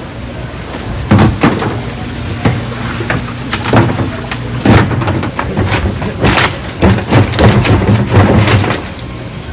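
Irregular knocks and clatters of hard things being handled, in a dense run from about a second in until near the end, over a steady low hum.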